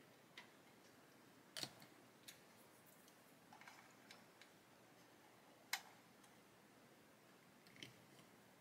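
Near silence with a few faint, sharp clicks and taps as small plastic model parts are handled and pressed together on the hull.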